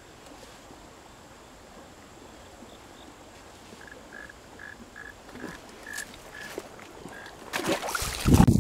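Faint short chirps at one pitch, about three a second, over a quiet outdoor background. Near the end, loud rustling and knocking as the handheld camera is moved about and swung away.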